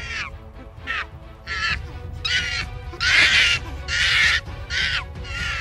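Chimpanzee calling: a run of about nine loud screams in quick succession, each falling in pitch at its end, the longest and loudest a little past halfway, over background music.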